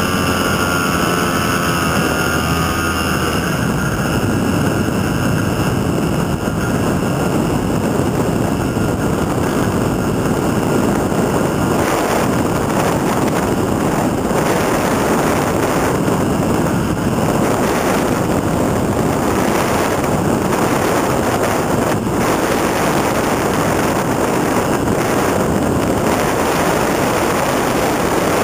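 Nanotrike's engine and propeller running with a steady pitched tone that fades out in the first few seconds, after which loud wind rushing over the wing-mounted microphone dominates as the trike descends.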